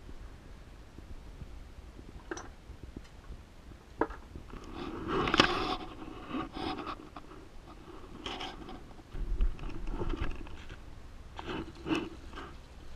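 Old bronze steering pulleys being handled and set into a plastic bucket: scattered knocks, clunks and scrapes, busiest around five seconds in. Near the end, diesel begins pouring from a plastic fuel can into the bucket.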